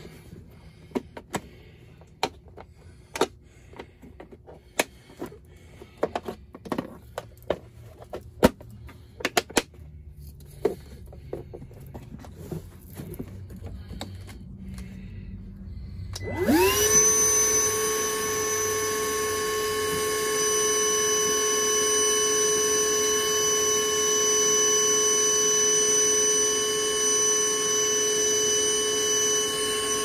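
Scattered clicks and knocks of the vacuum hose being handled and fitted onto a PVC pipe. About halfway through, a small shop vac switches on, its motor spinning up within a second to a steady whine as it sucks on the clogged condensate drain line.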